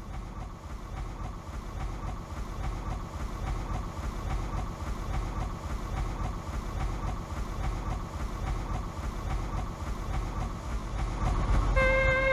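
Steam tugboat engine chugging over a steady low rumble, with a faint regular beat. Near the end music comes in with a held chord.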